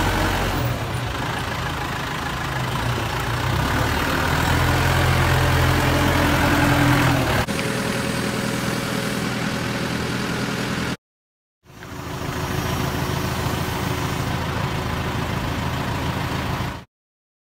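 The diesel engine of a New Holland TD4040F orchard tractor runs at a steady idle. The sound cuts out completely twice, about eleven seconds in and near the end.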